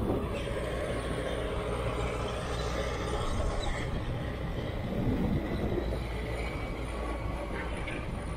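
Heavy diesel earthmoving machines running at work: a crawler loader and Sumitomo hydraulic excavators, with metallic squealing and clanking from steel tracks.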